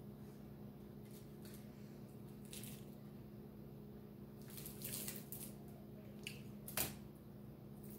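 Faint eating sounds: fingers pulling apart a cooked fish and wet mouth sounds of chewing, with scattered small clicks and a sharper click near the end, over a steady low hum.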